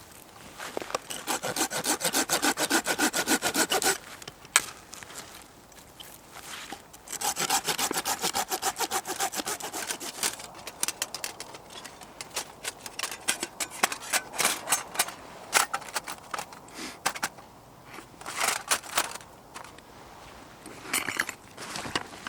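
Hand saw cutting through firewood in two bouts of quick, even back-and-forth strokes, each about three seconds long, near the start and about seven seconds in. After that come irregular scrapes and clicks as the wood is handled.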